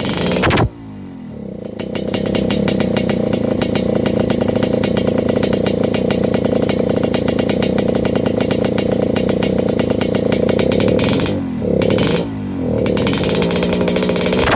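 Yamaha RX-King's single-cylinder two-stroke engine being revved: a short rev that cuts off, then it climbs to high revs and is held there for about nine seconds before dropping back and being blipped a few times. It has a raspy 'ngorok' growl from a rich ('wet') carburettor setting.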